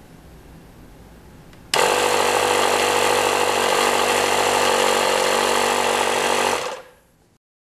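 Small air compressor switching on about two seconds in and running loud and steady for about five seconds, pumping air through a straw to inflate the balloon in a bottle submarine, then shutting off near the end.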